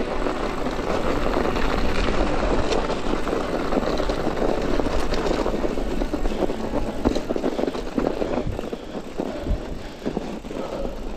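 Riding noise from a mountain bike moving over snow: a steady rush with low wind rumble on the microphone and scattered clicks and rattles from the bike.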